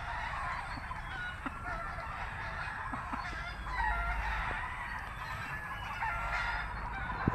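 Gamefowl in a gameyard clucking and crowing, many short overlapping calls over a low steady background rumble.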